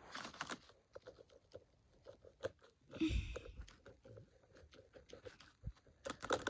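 Irregular light clicks and taps of fingers handling a model locomotive on the track, with a soft thump about three seconds in and a quick cluster of clicks near the end.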